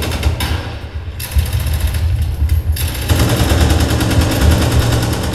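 Battle sound effect of rapid machine-gun fire, loud and nearly continuous, with brief let-ups in the first half, played over a hall's loudspeakers for a stage battle scene.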